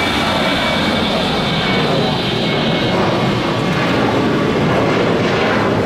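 Jet engines of a twin-engine Boeing 737 airliner climbing out after takeoff: a steady, loud engine noise with a high fan whine on top that fades about halfway through.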